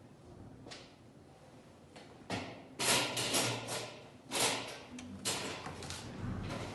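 Quiet room tone, then a few short bursts of clattering and rubbing from something being handled, the first about two and a half seconds in and the last near the end.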